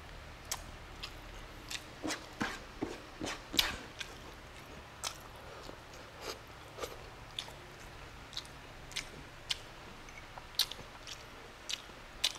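A person chewing a mouthful of beef stew and rice eaten by hand, with irregular sharp mouth clicks; the chewing is densest and loudest about two to four seconds in.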